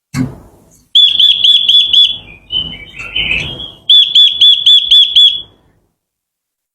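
Quế lâm bird singing: two bursts of quick, evenly repeated high whistled notes with a more varied warble between them, then the song stops. A short low knock comes right at the start.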